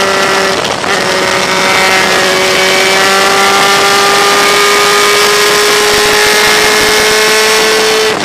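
Motorcycle engine pulling under throttle with wind rushing over the microphone. The engine note breaks briefly near the start, then rises slowly and steadily in pitch for several seconds as the bike accelerates, and drops just before the end.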